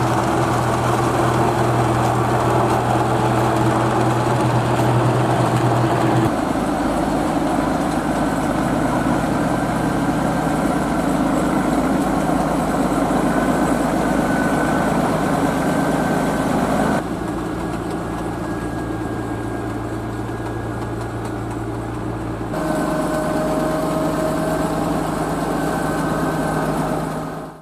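Massey Ferguson tractor diesel engines running under load on a maize silage clamp: a tractor hauling a forage wagon, then a Massey Ferguson 6499 pushing chopped maize with a front leveller. The steady engine note changes abruptly three times and is quieter for several seconds in the second half.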